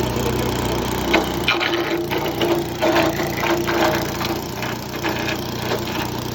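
ECHO Bear Cat wood chipper with a 9 horsepower engine running steadily. From about a second and a half in, a rapid, irregular run of cracks and snaps sounds as branches are fed in and chipped.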